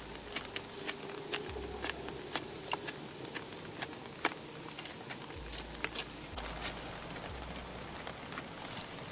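Small wood fire crackling under a clay hearth: irregular sharp pops and snaps over a steady hiss.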